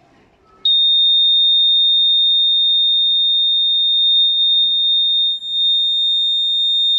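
Buzzer of a homemade rain detector alarm sounding one continuous high-pitched tone. It switches on abruptly about half a second in and holds steady, with a brief dip past the middle: the alarm has been set off by water on its sensor.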